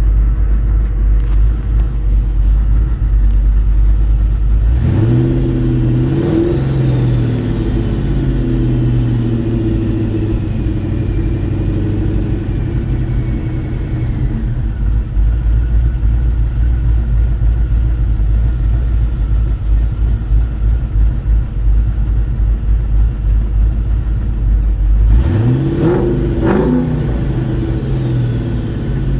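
Ford 4.6-litre two-valve V8 running: it idles, revs up about five seconds in and holds a higher steady speed, then is blipped up and back down again near the end.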